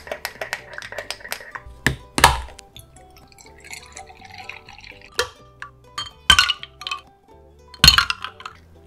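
Quick light clinks of a thin stick stirring coffee in a small ceramic pitcher, then a knock, milk pouring from a carton into a glass mug, and a clatter of ice cubes dropping into the glass near the end, over soft background music.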